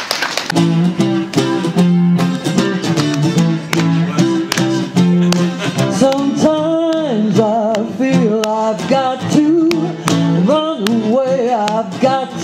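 Live acoustic guitar strumming chords, with a solo voice singing over it from about six seconds in.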